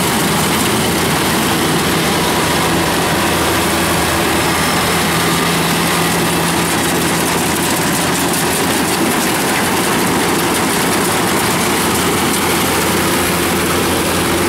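Kubota 105X combine harvester running steadily at work, its engine and its cutting and threshing machinery going together as it harvests rice.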